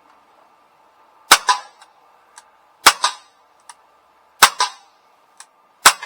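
Gamo 430 CO2 semi-automatic pellet pistol firing four shots about a second and a half apart, each sharp crack followed at once by a second, slightly quieter crack.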